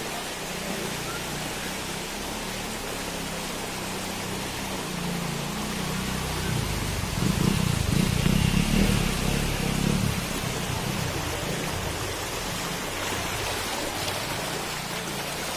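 Floodwater rushing through a street: a steady hiss of flowing water, with a louder low rumble from about seven to ten seconds in.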